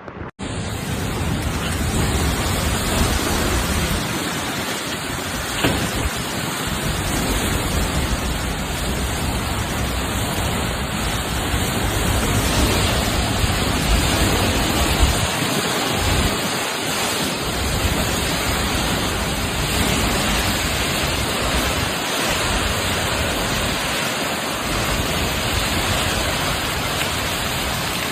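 Heavy tropical-cyclone rain pouring down in strong wind: a loud, steady, dense hiss, with gusts rumbling unevenly on the microphone.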